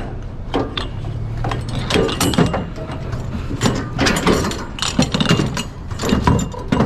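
Irregular knocks, clanks and rattles of scrap being shoved and settled into a pickup truck's loaded bed, over a steady low hum.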